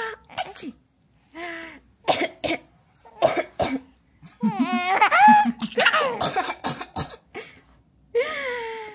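A woman gives a series of short, deliberate coughs. Between them a young baby lets out high-pitched squealing vocal sounds, about halfway through and again near the end.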